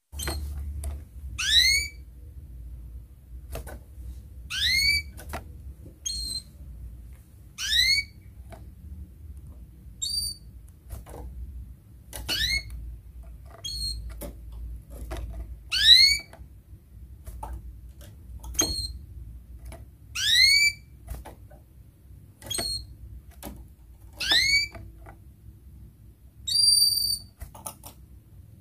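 Domestic canary giving its sharp rising 'cuit' call about every two to three seconds, with one steady held note near the end. Sharp clicks come between the calls as it hops and flutters about its wire cage.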